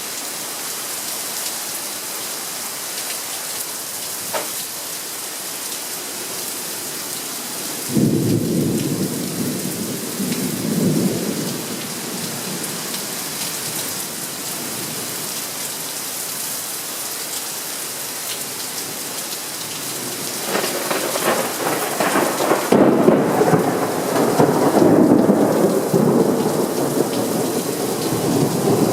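Steady rain on surfaces with thunder. A sudden clap about eight seconds in rolls off over a few seconds, and a longer rumble builds from about twenty seconds in and carries on to the end.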